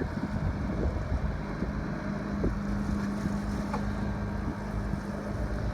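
Yamaha EF2000iS inverter generator running steadily with an even hum, while it powers a window air conditioner. Wind buffets the microphone throughout.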